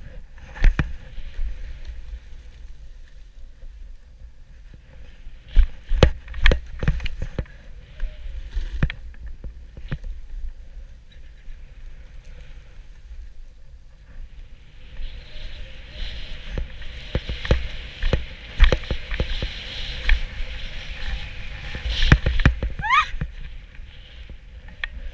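Snowboard sliding and scraping over choppy, tracked-out snow, with wind buffeting the action camera's microphone and sharp knocks as the board hits bumps. The scraping hiss grows much louder about fifteen seconds in as the rider carves harder.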